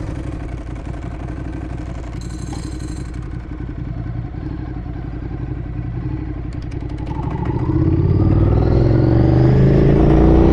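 Ducati Streetfighter engine running at low, steady revs; about seven seconds in it opens up and accelerates, the pitch climbing and the sound growing louder.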